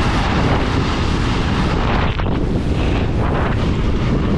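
Wind buffeting the microphone, a loud steady rushing noise.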